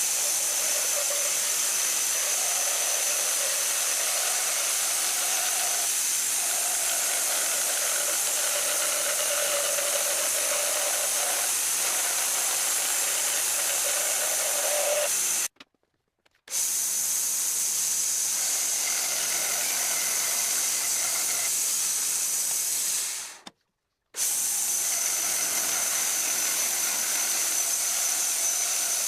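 Homemade machine tool running steadily: a continuous hiss with a thin high whine, broken twice by a second or so of silence where the recording cuts.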